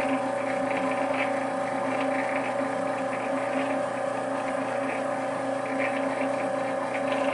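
Arcobaleno AEX18 pasta extruder running steadily in knead mode: a constant motor hum with a few steady tones as its stainless steel mixing shaft churns semolina that is taking up water.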